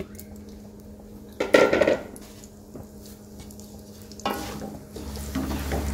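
Semolina frying in hot desi ghee in an aluminium pot, a soft sizzle, as a wooden spatula comes in to stir and scrape it: the start of roasting the semolina. A louder clatter about one and a half seconds in and another about four seconds in, and the stirring grows louder near the end.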